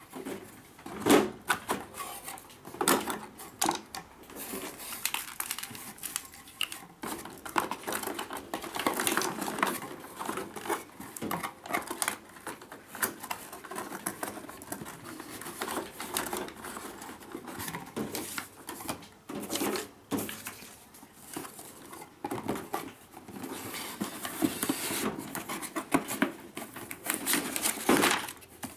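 Hands packing plastic electric-scissor parts and a coiled charger cord into a cardboard box with a molded pulp insert: irregular clicks, knocks and rustling of plastic and cardboard, with a sharper knock as the box lid is closed near the end.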